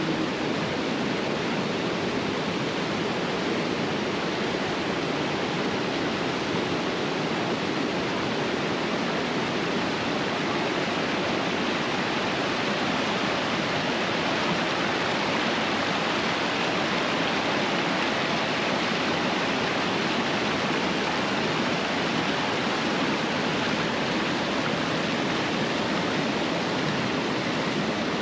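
Steady rush of a mountain creek: water pouring over a small waterfall into a pool and running through rocky rapids.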